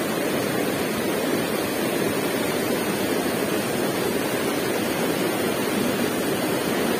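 Fast river rapids rushing over and around boulders: a steady, even rush of water.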